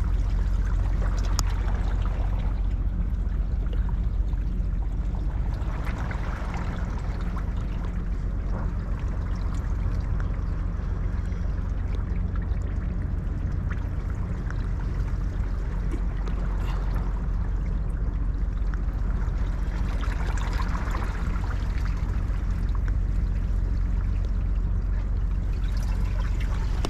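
Seawater sloshing and trickling, with a steady low rumble underneath.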